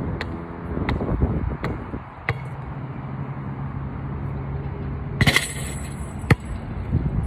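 A basketball bounced on a hard outdoor court, four bounces about two-thirds of a second apart. About five seconds in the shot hits the hoop's metal chain net with a brief jangling rattle, and the ball bounces on the court again near the end, over a low steady hum.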